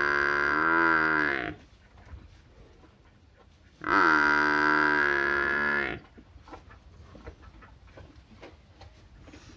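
Young water buffalo calf calling twice with long, loud moos, each held on a steady pitch and sagging at its end; the first call tails off about a second and a half in, the second runs for about two seconds from near the middle.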